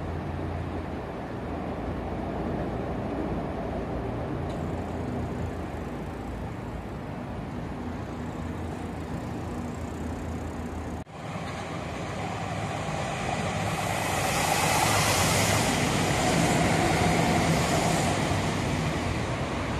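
Electric train running past close below on the tracks. Its wheel and running noise swells with a strong hiss from about two-thirds of the way in, over a steady background rumble of city and rail traffic.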